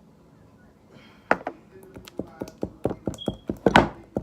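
Slime being mixed: a run of irregular taps and clicks that starts about a second in and comes thicker toward the end, with one loud click near the end.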